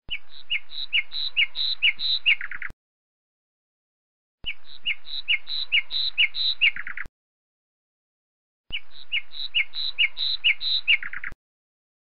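A lapwing calling: about seven short high notes in quick succession, ending in a brief rapid stuttering run. The same phrase is heard three times with silent pauses between.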